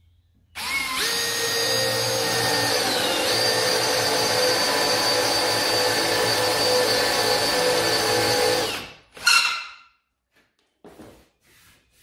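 Cordless drill boring a 25 mm hole into wood with a Festool bit: the motor spins up, its pitch drops slightly a few seconds in as the bit bites, then it runs steadily for about eight seconds and stops. A brief loud noise follows just after it stops.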